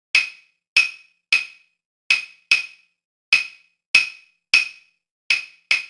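Claves struck in a salsa clave-style rhythm: ten sharp, ringing wooden clicks in a repeating pattern of three evenly spaced strokes followed by two quicker ones.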